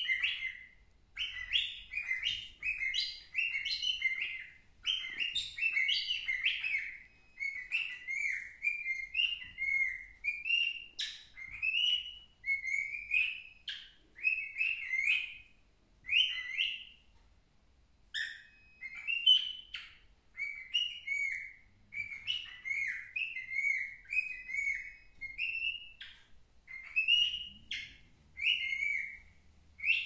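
Young grey cockatiel singing: a long run of short chirped and whistled notes, broken by a pause of about two seconds just past the middle.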